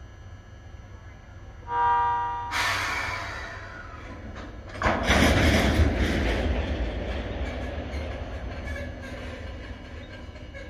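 JR Freight HD300 hybrid shunting locomotive sounding a short horn note, followed by a rushing noise that fades. About five seconds in, a loud low rumble with clanks starts and slowly dies away as the locomotive and its tank wagons get moving.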